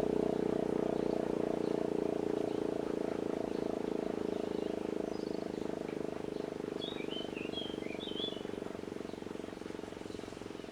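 E57 electromechanical motor siren sounding a low, steady howl with a fast pulsing in its upper tone, slowly growing fainter; its rotor is wired to turn the wrong way. A few short bird chirps come through about two-thirds of the way in.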